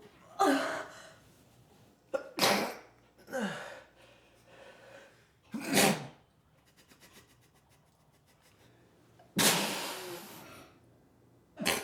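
A person fighting off a sneeze: a series of short, sharp nasal bursts and breaths as sneezes are stifled, with a longer burst that trails off about nine and a half seconds in.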